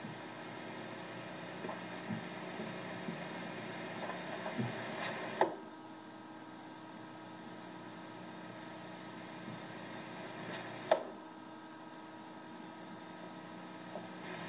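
Two thrown hatchets striking a wooden target, two sharp impacts about five and a half seconds apart, over a steady electrical hum.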